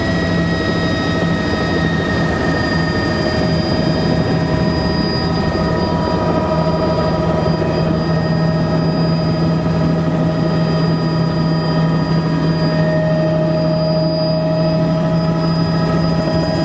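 Helicopter engine and rotor running steadily at power, heard from inside the cabin, with a constant high whine over the rotor noise, as the helicopter lifts off.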